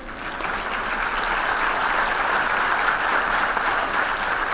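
A large audience applauding, the clapping building up over the first second and then holding steady.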